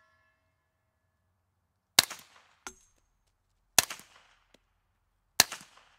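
Three suppressed .45 ACP shots, evenly spaced under two seconds apart, from a carbine fitted with a Bowers ASP45 aluminium suppressor. The suppressor is shot wet with 230-grain subsonic ammunition, which keeps each report short and muted.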